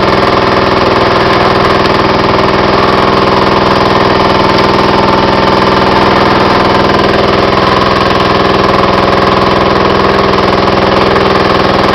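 An engine running steadily at a constant speed, unchanging throughout.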